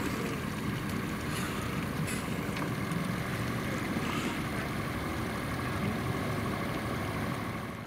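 Steady wind-and-water noise aboard a small fishing boat on open water, with a couple of faint clicks, fading out at the very end.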